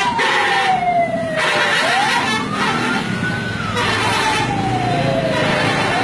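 Siren wailing in slow rising and falling sweeps, about one rise and fall every three to four seconds, over steady road and engine noise.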